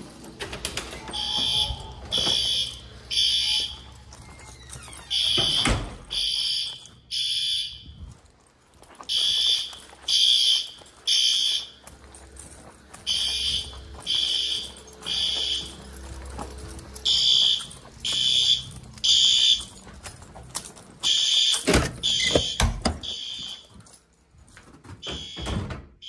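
Fire alarm horns sounding the temporal-three evacuation pattern: three short honks, a pause, then again, repeating about every four seconds.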